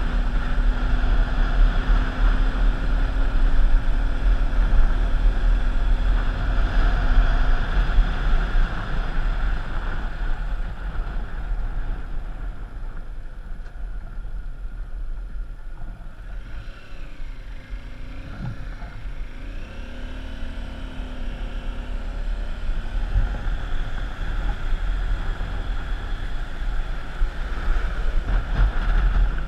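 A vehicle running along the road with heavy wind rumble on the microphone. It eases off through the middle, and a brief wavering tone comes in about two-thirds of the way through.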